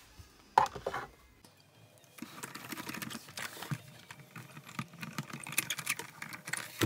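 Sizzix Big Shot die-cutting and embossing machine being hand-cranked, its plates carrying a metal die and silicone embossing mat through the rollers with a rapid run of small clicks and creaks from about two seconds in. There is a brief loud knock about half a second in.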